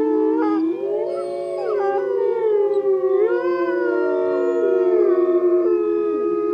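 A pack of canines howling in chorus: several long howls overlap, gliding up and down in pitch, and one voice settles into a steady held note near the end.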